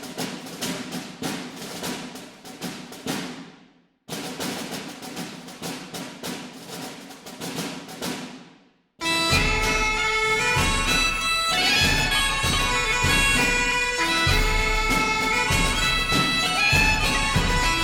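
Music. A quick rhythmic pattern twice fades away, then about halfway through a fuller tune begins, with held melody notes over a steady beat.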